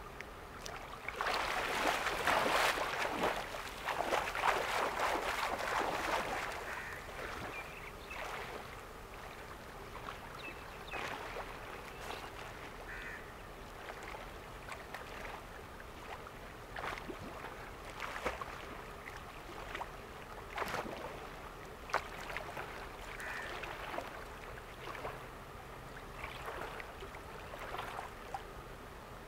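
Seawater splashing and lapping around a swimmer, with a busier patch of splashing in the first several seconds, then gentle lapping with scattered small splashes.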